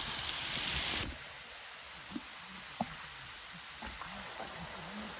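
Steady rushing of a waterfall that cuts off abruptly about a second in, leaving quiet outdoor ambience with a few faint clicks.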